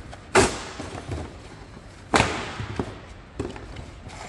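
Heavy knocks during the work: two loud blows about two seconds apart, each ringing out briefly, followed by a couple of lighter knocks.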